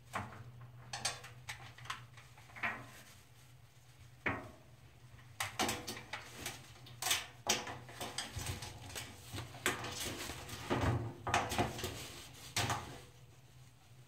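A blue-and-gold macaw clambering about inside a clothes dryer's metal drum as it pulls the laundry out, making irregular knocks and scrapes on the drum. A few separate knocks come first, then from about five seconds in they come thick and fast until just before the end.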